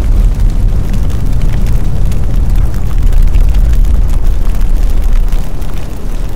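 Large fire burning: a loud, deep, steady rumble with crackling throughout.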